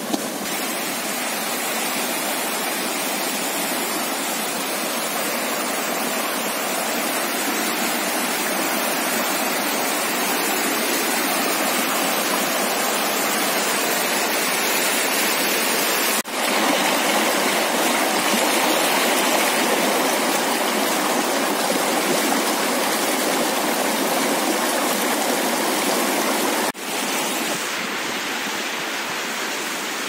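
A shallow, rocky river rushing and splashing over stones in a steady wash of moving water. It breaks off briefly twice where the recording is spliced, a little louder after the first break and softer after the second.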